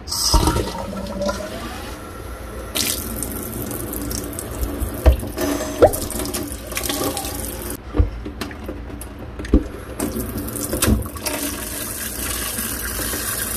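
Water running from a newly installed kitchen faucet into a stainless steel sink, the spout flushing with its aerator removed so debris won't plug the aerator's tiny orifices. Later the side sprayer sprays into the drain. The flow breaks off briefly a couple of times, with a few light knocks.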